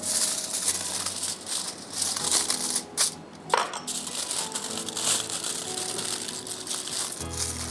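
A sheet of aluminium foil is folded and crinkled by hand to wrap food into a parcel, making continuous crackling, with a few sharper crackles near the middle.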